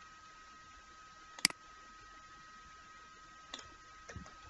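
Computer mouse clicking: one sharp click about a second and a half in, then a few fainter clicks near the end, over a faint steady high-pitched hum.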